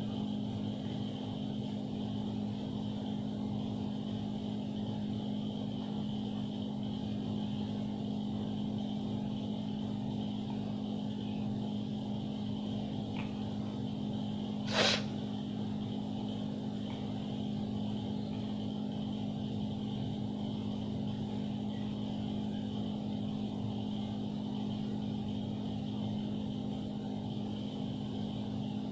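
A steady low mechanical hum, like a fan or motor running, with a single sharp click about fifteen seconds in.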